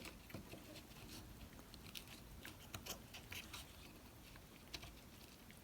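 Faint, scattered clicks and taps of small plastic parts of a heater blend door actuator being handled and fitted together.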